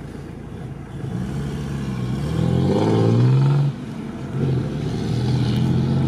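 Car engine accelerating, heard from inside the cabin: its pitch climbs, drops away sharply about two-thirds of the way through, then builds again.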